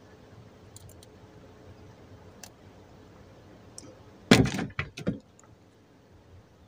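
A quick cluster of about four knocks and clattering bangs in a small fishing boat, all within just under a second a little past halfway through, over faint background noise.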